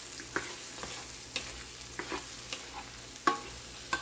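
Egg and potato bhujia frying in a nonstick wok: a steady faint sizzle under irregular clicks and scrapes of a plastic slotted spoon stirring against the pan, the loudest knock about three seconds in.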